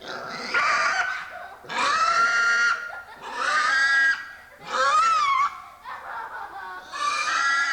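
Pig squealing: a series of about five long, high squeals, some wavering in pitch, with short gaps between them.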